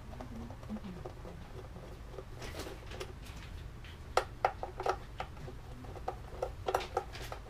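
Screwdriver turning a screw through a shotgun's rubber recoil pad to take off the original stock: irregular small squeaks, clicks and scrapes, thickest from about four to seven seconds in, over a low steady hum.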